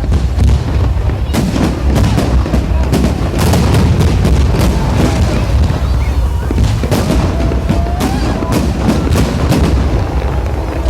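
Fireworks display: shells bursting in a dense, continuous volley, many sharp cracks over a steady low rumble of booms.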